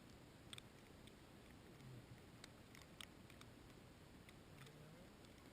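Near silence with a few faint, scattered ticks over a low background rumble.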